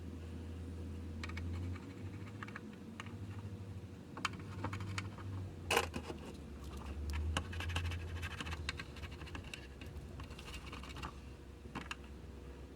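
Scattered light clicks and scratches of hands working on a TV's circuit boards, busiest in the middle, over a steady low electrical hum.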